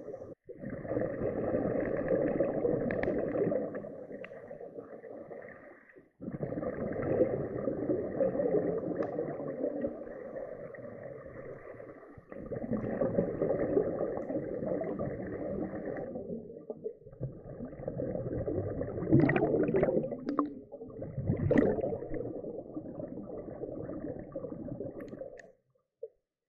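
Underwater noise heard through an action camera's housing: muffled rushing and bubbling from scuba breathing and exhaled bubbles. It comes in several stretches broken by brief dropouts, with a few louder bubbling surges near the end.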